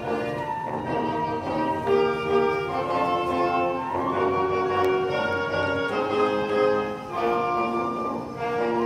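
Instrumental background music recorded by a school ensemble: a melody in long held notes over a fuller accompaniment.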